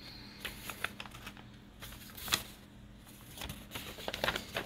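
A plastic poly mailer and a paper card being handled: scattered light crinkles and taps, the sharpest about two and a half seconds in, with a quick run of them near the end.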